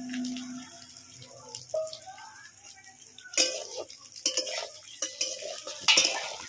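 Metal spatula scraping and knocking against a steel wok while stirring chopped onion and green capsicum. The strokes are sparse at first and come thick and fast from about halfway in.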